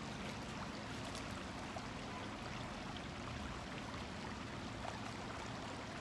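Shallow creek water running steadily over a rocky riffle.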